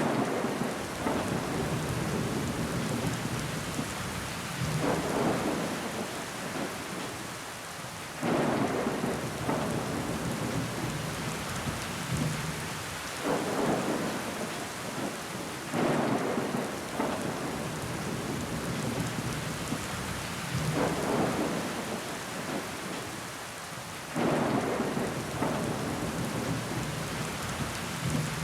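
Steady rain falling against window glass, with sudden louder swells every few seconds that die away.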